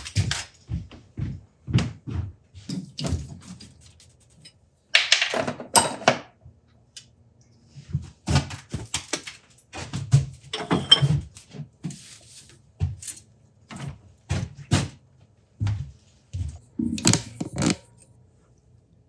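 Irregular knocks and clunks of metal tools and parts being handled and set down at a metal lathe, coming in clusters with short quiet gaps between.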